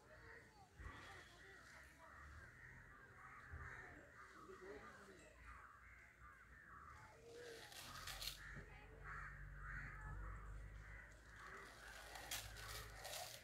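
Faint chorus of many crows cawing over one another without a break. A couple of brief crackling sounds stand out in the second half.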